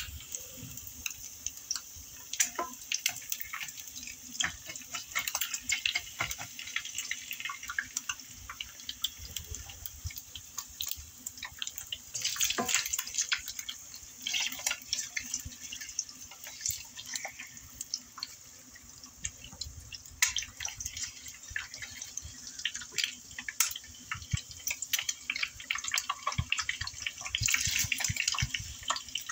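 Eggs frying in hot fat in a nonstick pan: a steady sizzle with dense, irregular crackling pops. A spatula working under the eggs adds louder scraping and crackling in stretches, around twelve seconds in and near the end.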